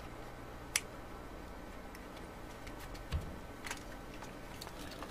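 Small plastic kit parts being handled as a metal battery terminal is pressed into the plastic base: a sharp click a little under a second in, a dull knock about three seconds in, then a couple of fainter clicks.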